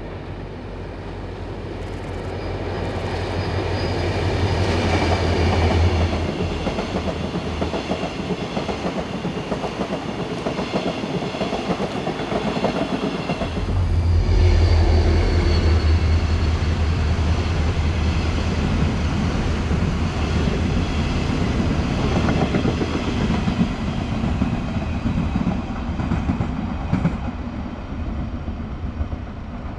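Diesel-electric locomotive DEL7429 running as it hauls a train of new, unpowered GTX-A electric cars past, its engine a steady low hum under the clatter of the wheels on the rails. The sound grows as the train nears, and changes sharply about halfway through as a second approach begins.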